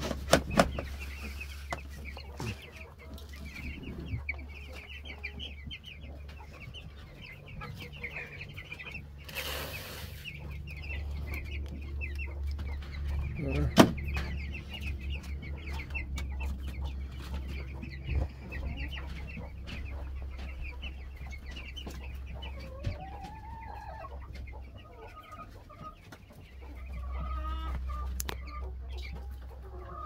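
A pen full of meat chickens cheeping and clucking without a break, many short high calls overlapping. A low steady hum runs underneath, and there is a brief burst of rustling noise about nine seconds in.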